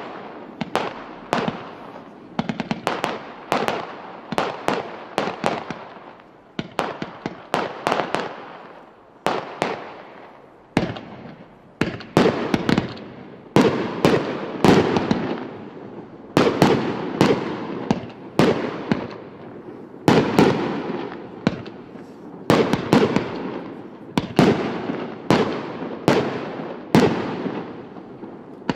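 A 418-shot firework compound cake firing: a rapid, steady succession of shots and aerial bursts, roughly one to two a second, each bang trailing off in an echo.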